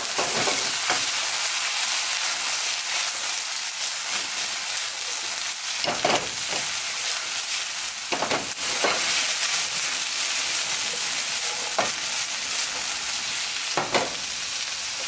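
Vegetables sizzling steadily in hot oil in a stainless steel skillet, with a few short scraping knocks every couple of seconds as they are stirred and tossed.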